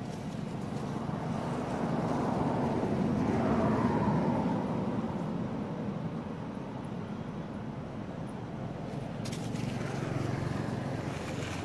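A motor vehicle passing by, its noise swelling to a peak about four seconds in and then fading. A fainter swell follows near the end, along with some light crackling.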